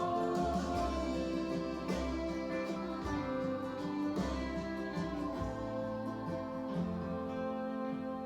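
Guitar music playing back from a vinyl record on a Denon DP-31F automatic turntable.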